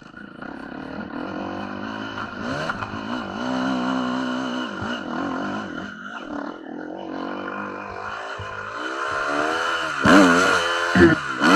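Enduro motorcycle engine under way off-road, its pitch rising and falling again and again as the throttle opens and closes, loudest near the end.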